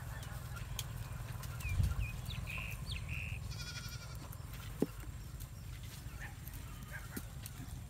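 A goat bleats once, short and high-pitched with a quaver, about halfway through, over a steady low rumble. A few short high chirps come just before the bleat, and there is a soft thump early on and a sharp knock soon after.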